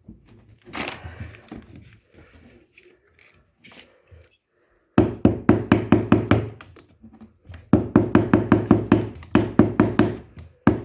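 Quick runs of sharp knocks, about five a second, in four bursts from about halfway through, after faint handling noise: the drive pulley being tapped down onto the shaft of a washing machine's gearbox.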